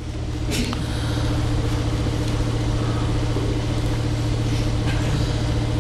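An engine running steadily: a low, even hum over a rumble that builds about half a second in and cuts off suddenly near the end.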